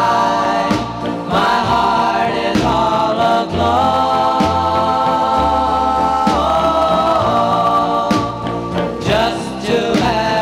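Late-1950s vocal group record playing from a styrene 45 rpm single, taken by direct line-in transfer: several voices sing in close harmony, holding long notes and moving together between chords over a bass line.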